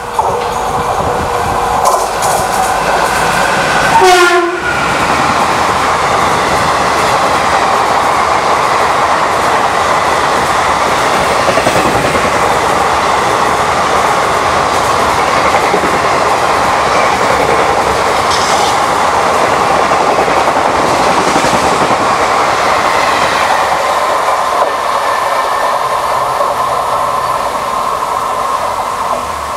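Express train hauled by a WAP-4 electric locomotive passing at high speed. The horn sounds and drops sharply in pitch as the locomotive goes by about four seconds in; then comes the steady rush and clickety-clack of the coaches' wheels over the rail joints, easing off near the end.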